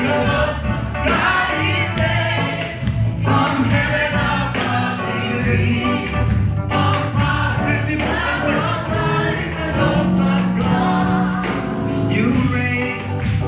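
Live Zulu gospel worship song: a lead singer and choir-like group voices sing over a band, with a prominent bass line and guitar.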